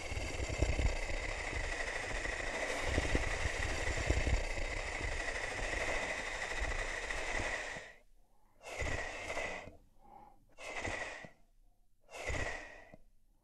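Sound-designed Tyrannosaurus rex breathing: one long raspy exhale with a high whistling tone running through it for about eight seconds, then three short breaths, each ending in a dropping whistle.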